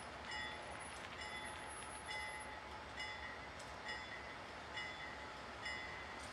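A railroad bell striking about once a second, each strike ringing with a clear metallic tone, over a low steady rumble.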